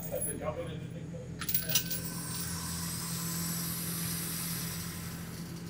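A few sharp metallic clinks about a second and a half in, then the range's motorised target carrier running as it brings the paper target up the lane, a steady hiss that fades near the end, over a constant low ventilation hum.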